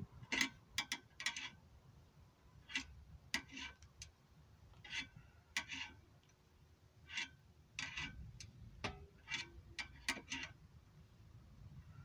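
Scissor jack being cranked by hand: short runs of quick metal clicks, with pauses between the runs.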